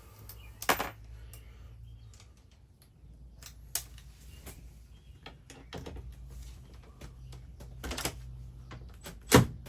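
Scattered clicks, taps and knocks of hand-tool work on an RV power converter being unscrewed and pulled out, over a faint low steady hum. The loudest knocks come near the end.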